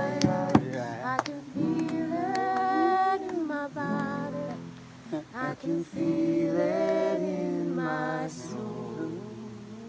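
Acoustic guitar played with people singing along, a woman's voice among them, and a few handclaps in the first second or so.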